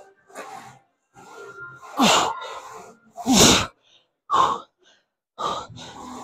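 A man breathing hard through leg press repetitions: sharp forced exhales roughly once a second. The two loudest, about two and three and a half seconds in, come with a falling grunt of effort.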